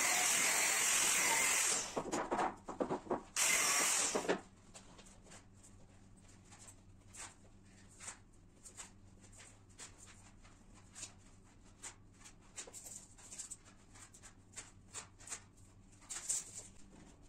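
Handheld angle grinder cutting through a wooden stud: a loud, steady hiss that breaks off about two seconds in, returns in short bursts and one last brief run, and stops about four seconds in. After that, faint scattered knocks and taps of wooden studs being handled.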